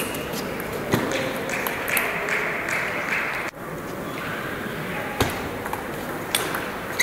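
Table tennis rally: a celluloid ball clicking sharply off rackets and the table, one hit about every second, over the murmur of spectators' voices.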